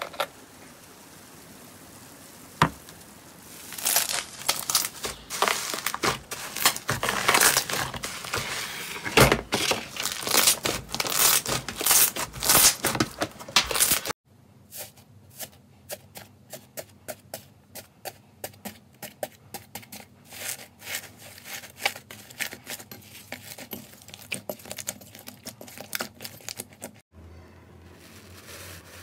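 Hands squeezing and pulling thick foamy slime, making crackling, popping sounds. The crackle turns dense and loud a few seconds in, then after a cut becomes sparser, sharper single pops as the slime is pulled apart.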